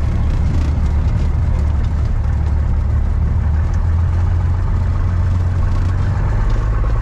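Cessna 172's piston engine and propeller running steadily, a deep even drone, its tone shifting slightly near the end.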